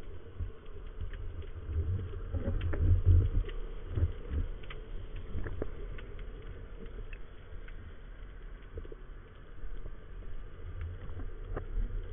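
Underwater ambience while a spearfisher swims along the rocks: uneven low rumbling of moving water, heaviest a few seconds in and again near the end, with many scattered faint clicks.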